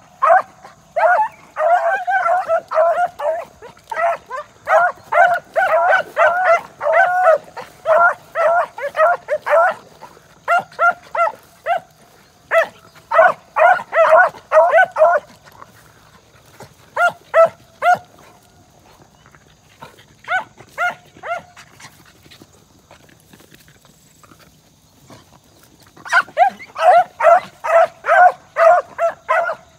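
Beagle-type hound barking in quick runs of short, high barks, about three a second, thinning out past the middle, pausing for a few seconds, then starting up again near the end.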